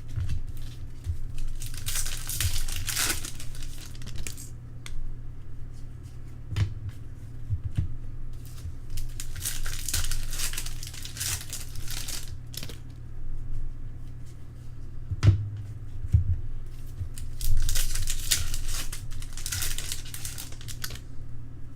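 Baseball card pack wrappers crinkling and tearing open in three spells of rustling, with short taps and clicks of cards being handled between them.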